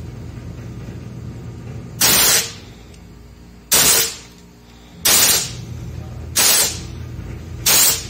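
Five short, loud hisses of R-22 refrigerant gas blasting out of an open refrigerator line, roughly one every 1.3 seconds, as the line is flushed to drive out old compressor oil. A steady low hum runs underneath.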